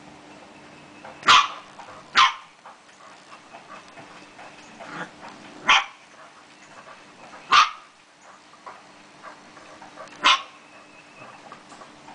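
Border collie puppy barking: five short, high, sharp barks spaced a few seconds apart.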